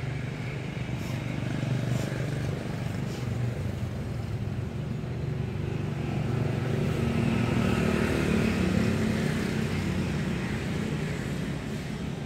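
Steady low rumble of a motor vehicle engine, swelling about halfway through and easing off near the end.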